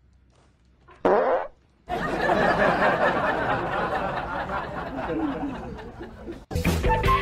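Dog farting: a short burst about a second in, then a long rough one lasting about four seconds. Guitar music starts near the end.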